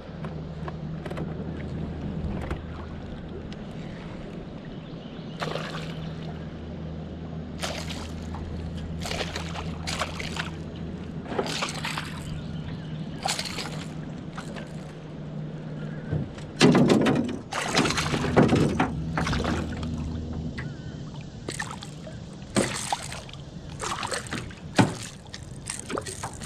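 A hooked striped bass thrashing and splashing at the water's surface beside the boat as it is brought in and grabbed by hand, in a run of short sharp splashes that is loudest about two-thirds of the way through. A steady low hum runs underneath through the first part.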